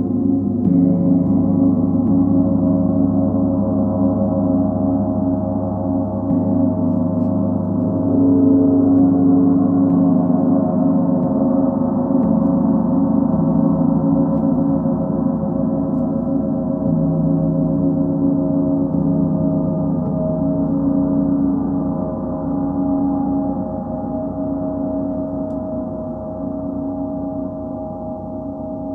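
Large planetary gongs (Sun, Full Moon and Earth) played with a soft mallet, giving a dense wash of overlapping sustained tones that swell and shimmer. The sound slowly fades over the last several seconds.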